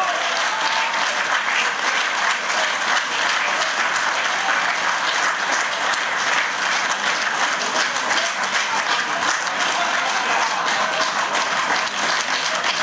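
Audience applauding steadily: many hands clapping at once.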